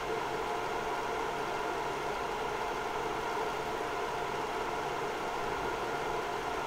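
Synology RS422+ 1U rackmount NAS running with two Western Digital Ultrastar HC330 7200 rpm hard drives in active use: a steady whirring hum from its spinning drives and cooling fans.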